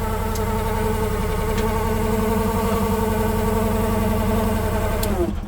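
Small Briggs & Stratton gasoline engine of a Chinese mini excavator running steadily on the choke, just after starting, to test a newly fitted choke cable. About five seconds in it is shut off, its pitch falling as it winds down.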